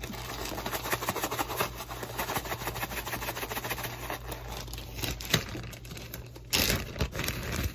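Plastic zip-top bag being shaken hard, with flour and a piece of cube steak tumbling inside it and the plastic rustling and crinkling rapidly. A louder rustle comes about six and a half seconds in.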